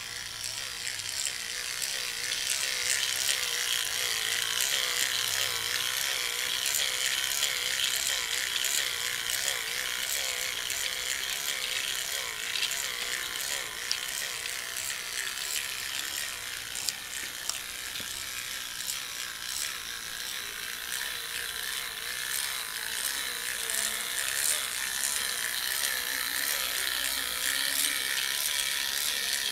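Battery-powered toy train running on plastic track: its small electric motor and gears whir steadily, with a fine rapid ticking from the wheels and gearing. A wavering whine sits over the whir in the first half.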